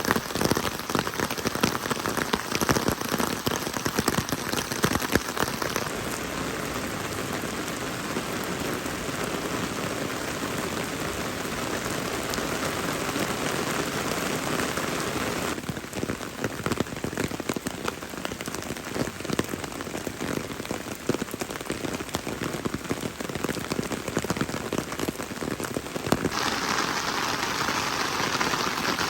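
Steady rain falling, with the patter of many separate drops. The character of the rain sound shifts abruptly about six seconds in, about halfway through, and again near the end.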